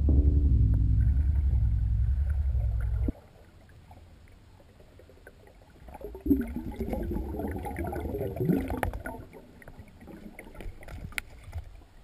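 Music with deep, sustained low notes that cuts off abruptly about three seconds in. Then come quieter underwater gurgling sounds, loudest a few seconds later, with scattered small clicks.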